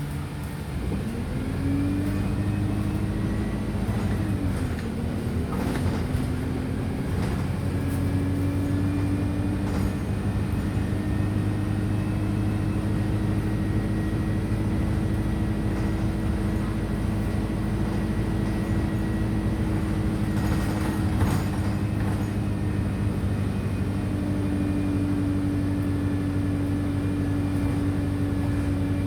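Wright StreetLite DF single-decker bus heard from on board while driving. The engine and driveline note dips and climbs twice in the first few seconds, then holds steady at a cruising pitch with a faint high whine. There are a few brief rattles or knocks about six seconds in and again about twenty-one seconds in.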